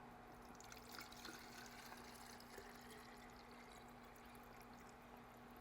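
Very faint water pouring into a foam cannon bottle, barely above near silence, with a faint steady hum underneath.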